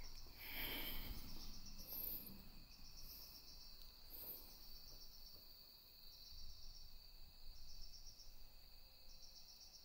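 Crickets chirping faintly: short pulsed trills repeating every second or two over a steady high insect drone, with a few soft scuffs in the first few seconds.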